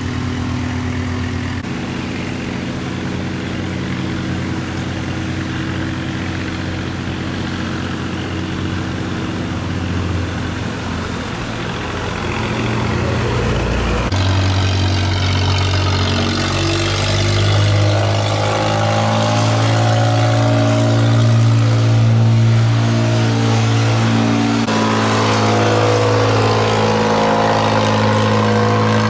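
Boat engine running steadily, then growing louder with a stronger low drone about halfway through, its pitch climbing as it works harder, typical of a laden boat driving against the current through a sluice gate.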